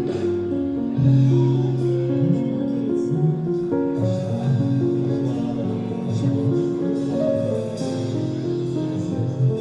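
Live street music heard in the open: an instrumental melody of held notes stepping up and down over a steady low accompaniment, with a crowd standing around the performers.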